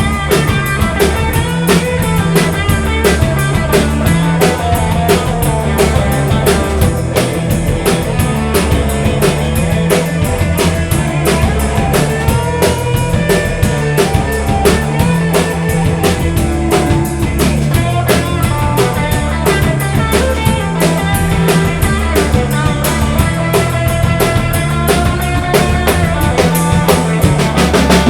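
Rock band playing a steady, driving beat on drum kit, with electric guitar and bass.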